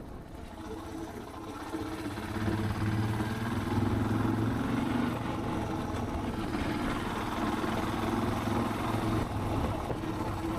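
Suzuki DR650's single-cylinder engine running under way, its note growing louder about two seconds in and then holding steady.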